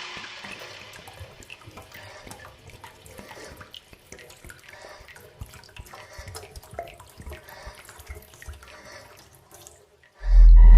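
Faint, irregular dripping and trickling water, like a tap running into a sink. Near the end a loud, steady low buzz cuts in suddenly.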